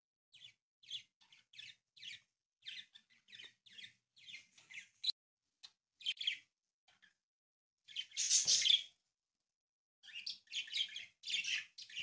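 Origami paper rustling and being creased by hand: a string of short, scratchy crackles, with one longer, louder rustle about eight seconds in.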